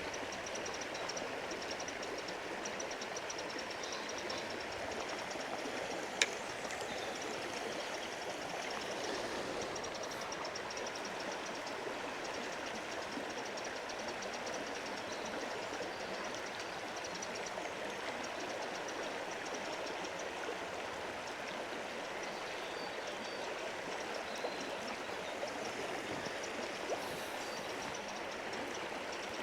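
River water rushing steadily, with a single sharp click about six seconds in.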